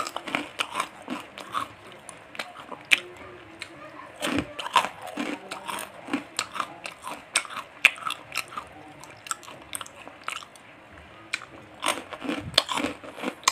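Kerupuk bawang (garlic crackers) being bitten and chewed: irregular, crisp crunches.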